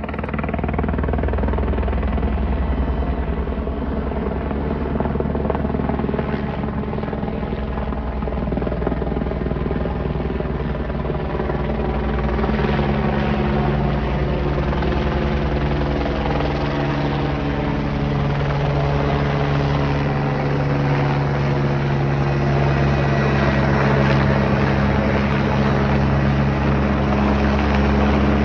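Helicopter running steadily, its low rotor beat under a whine from the engine. From about halfway, several of the higher tones slowly fall in pitch.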